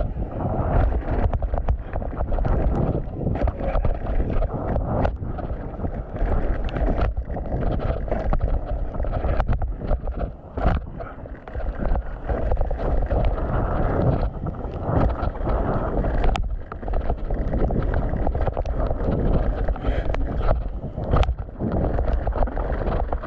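Mountain bike riding down dirt singletrack, heard from a camera on the rider or bike: wind buffeting the microphone and tyre noise, with frequent sharp knocks and rattles as the bike goes over the rough trail.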